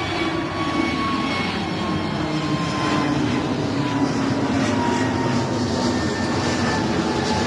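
Airbus A320-family jet airliner climbing away after takeoff: steady jet engine noise with thin whining tones that slowly fall in pitch as it recedes.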